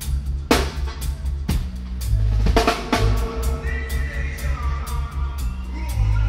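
Live reggae band playing, with the drum kit close and loudest: sharp snare and cymbal hits over a heavy, steady bass line. A higher melodic part comes in about halfway.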